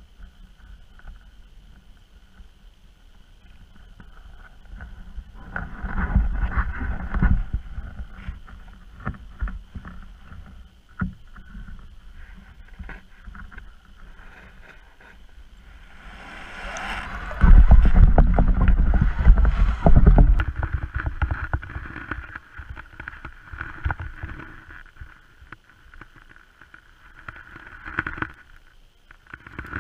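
Muffled water sloshing and knocking against an underwater camera's housing, coming in two louder rumbling spells, over a faint steady high electronic tone.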